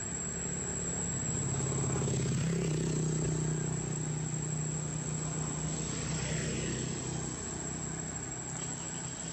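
A motor vehicle's engine running, a steady low hum that grows louder about a second and a half in and eases off after about seven seconds. A thin, steady high-pitched whine runs underneath.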